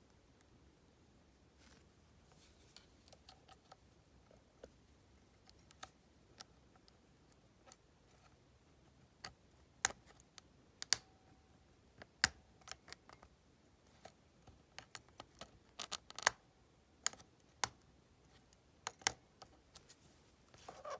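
Hook pick and tension wrench working the pin-tumbler cylinder of an Ace 70 mm disc padlock: scattered small metallic clicks and ticks, sparse at first, then louder and more frequent in the second half.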